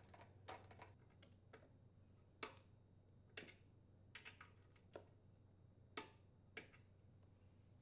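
Faint, irregular metallic clicks of a socket and torque wrench tightening the blower housing mounting bolts on a Briggs & Stratton lawn mower engine, about a dozen light ticks scattered through otherwise near silence.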